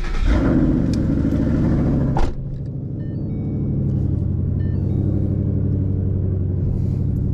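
Ford Mustang Boss 302's 5.0 V8 through Roush axleback mufflers just after starting: a high flare for about two seconds, a sharp knock as it drops, then a steady, deep idle.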